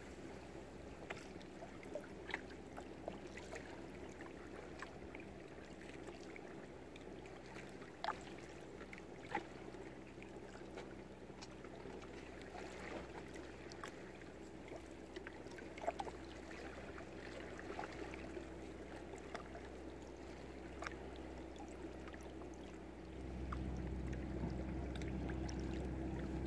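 Water lapping gently around moored boats, with scattered small clicks and knocks over a steady low hum. Near the end, wind starts buffeting the microphone.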